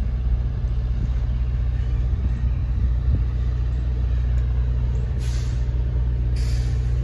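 Norfolk Southern freight train shoving its cars slowly, with a steady low diesel rumble. Two short hisses of air come about five and six and a half seconds in, typical of air-brake releases during coupling-up.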